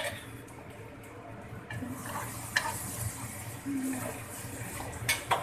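Wooden spatula stirring instant noodles in a wok of simmering broth: a soft wet hiss with a few light knocks and scrapes against the pan, two sharper ones near the end. The broth is cooking down so the noodles come out saucy rather than soupy.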